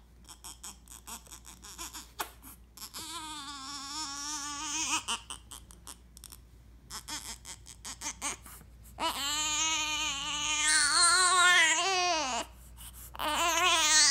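A 24-day-old newborn baby fussing and crying: a short wail a few seconds in, then longer, louder wails from about nine seconds in, one falling in pitch as it ends, with another starting near the end.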